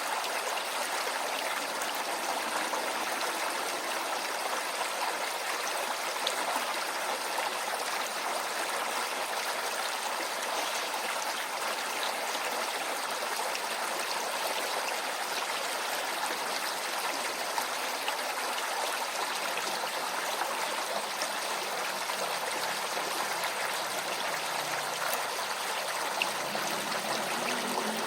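Small urban stream flowing, a steady, unbroken rush and trickle of water.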